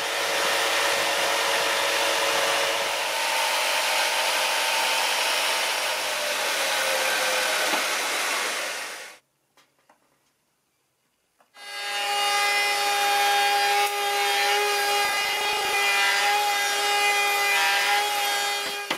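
Bosch jigsaw sawing through a wooden board for about nine seconds, then stopping. After a couple of seconds of near silence, a compact trim router runs with a steady whine as it cuts a recess into wood, stopping at the very end.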